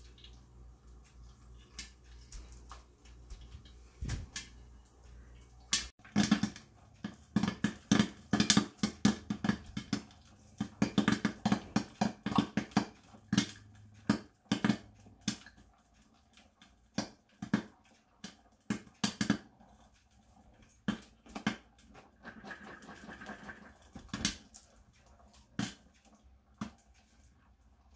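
Popcorn kernels popping in an electric stir-type popcorn popper with a clear dome: a few pops at first, then a dense burst of pops from about six seconds in that thins to scattered pops toward the end as the batch nears done.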